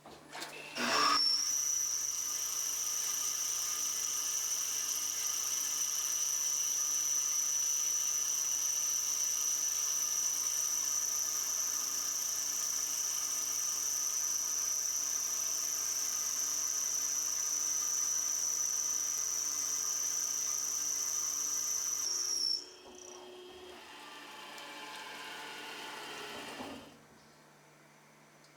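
Milling machine side-milling stainless steel with a VariMill II solid carbide end mill. A steady high-pitched whine starts about a second in and holds for some twenty seconds, then drops off abruptly; the spindle runs on more quietly and winds down with falling pitch until it stops.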